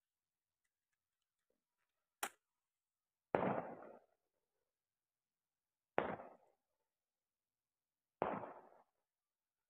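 Three firecracker bangs about two to three seconds apart, each starting sharply and dying away in a short echoing tail, after a single sharp click about two seconds in.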